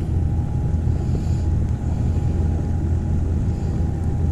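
Boat engine running steadily: a continuous low hum with a faint steady whine above it.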